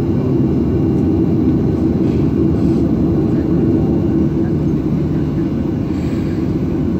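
Jet airliner's engines running, heard from inside the cabin as the plane taxis: a steady, loud low rumble.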